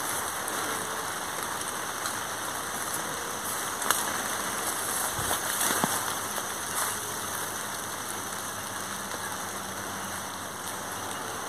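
Steady hiss of rain falling, with a few faint clicks.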